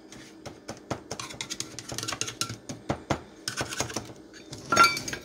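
Stainless steel measuring cup tamping a cookie-crumb crust into a metal springform pan: a quick run of small taps and crunchy clicks, with a louder knock near the end.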